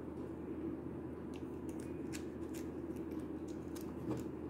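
Light plastic clicks and scrapes of a detachable shoulder-pad piece being handled and pressed onto an action figure's shoulder, a scatter of small sharp ticks over a faint steady background.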